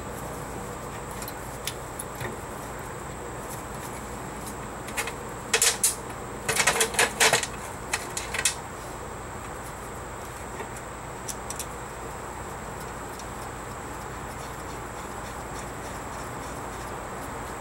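A metal brake caliper and pads clicking and clinking as the caliper is worked back into place over new pads on a 2004 Honda Pilot's disc brake. The clinks come in a few quick clusters about five to eight seconds in, over a steady background hum.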